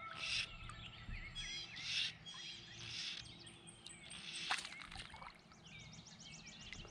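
Several birds chirping and singing, with short call notes throughout and a fast, evenly repeated trill near the end.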